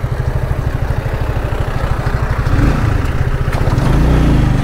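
Motorcycle engine pulling away at low speed, its exhaust pulsing evenly. From about halfway through, a passing utility vehicle's engine is heard alongside, louder near the end.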